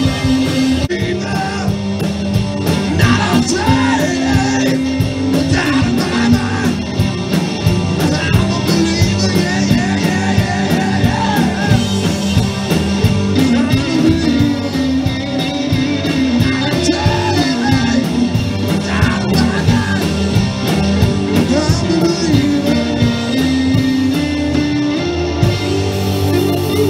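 Live rock band playing: electric guitars, bass and drum kit driving a steady beat, with a voice singing over it.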